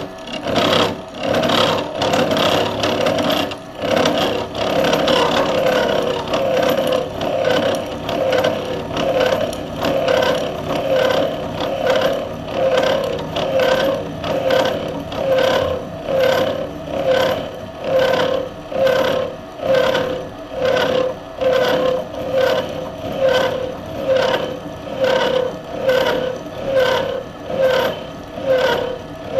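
Bridgeport milling machine's disc-shaped cutter milling a tooth slot in a metal workpiece held in a dividing head: a steady scraping, rasping cut that swells and fades in an even rhythm about once a second.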